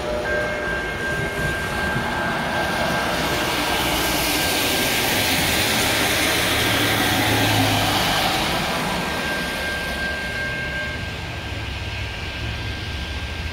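Amtrak Lake Shore Limited passenger train passing through a grade crossing: its rumble and the rush of wheels on rail swell to a peak in the middle and then fade. Under it, the crossing's warning bell rings as one steady tone.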